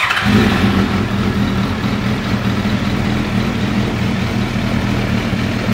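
Motorcycle engine idling steadily, coming in abruptly at full level.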